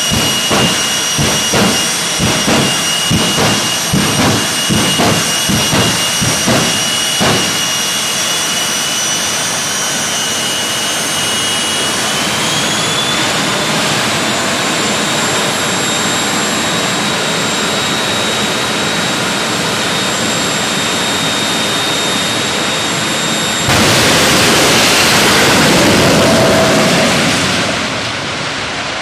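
Jet dragster turbine engines: rhythmic afterburner pops, about two a second, over a high turbine whine for the first several seconds, then a steady whine that steps up in pitch. About 24 s in comes a sudden much louder blast as the afterburners light for the launch, fading near the end as the cars run off down the track.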